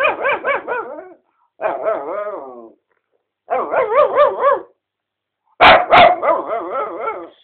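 Mixed-breed dog vocalizing in four bouts of warbling, wavering howl-like calls, with short pauses between them. The last bout opens with two sharp, loud barks. These are the attention-seeking, playful noises this dog makes.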